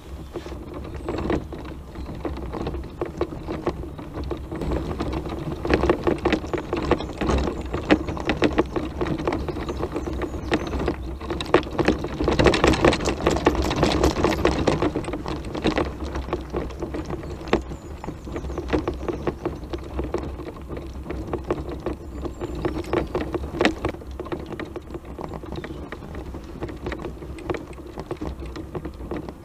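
Tramper off-road mobility scooter driving over a stony gravel track: a steady electric-motor hum with the tyres crunching and the machine rattling over the stones. It gets louder for a few seconds around the middle.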